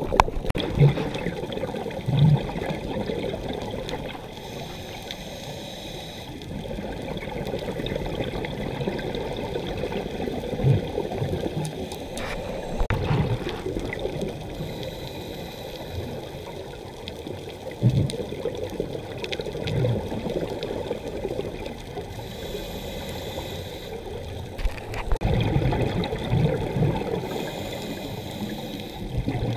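Underwater ambience recorded on a diving camera: a steady wash of water noise, with scuba regulator exhaust bubbles hissing out about four times, every six to eight seconds, and a few short low thumps.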